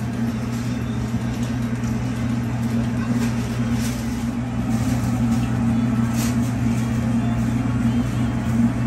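Steady low mechanical hum from a kitchen machine, with faint rustling as ground split-pea dhal filling is tossed by hand in a large steel bowl.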